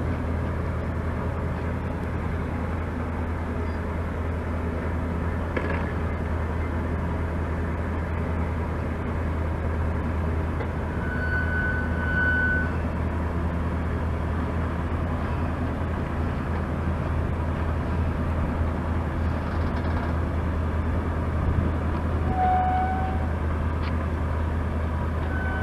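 Gasoline engine of a 1976 Bantam truck crane running at a steady idle, a low, even hum. A couple of brief high whistling tones sound over it, about eleven seconds in and again near the end.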